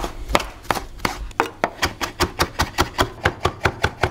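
Chef's knife chopping fresh parsley on a wooden cutting board: quick, even knocks of the blade on the board that speed up to about five a second after the first second or so.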